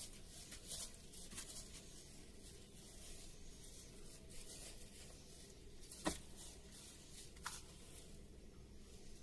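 Faint rustling and light clicks in a quiet small room, with a sharper click about six seconds in and a softer one about a second and a half later.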